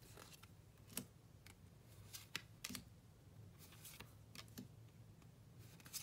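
Pokémon trading cards being flipped through by hand, one at a time: faint, irregular snaps and clicks of card edges, about ten over the few seconds.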